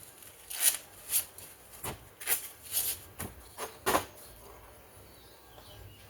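Small chainsaw parts clicking and scraping together as a cut-down replacement part is tried on for fit, with about eight short clicks in the first four seconds.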